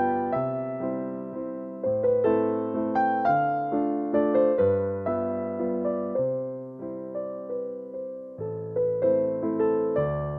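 Background music: a gentle piano tune with a steady left-hand bass.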